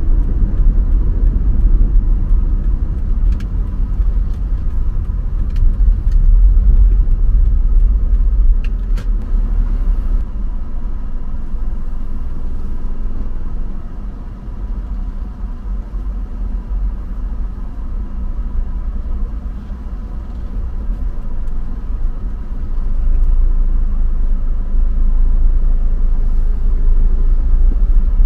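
Car driving on city roads: a steady low rumble of road and engine noise that eases off for several seconds in the middle and builds again near the end.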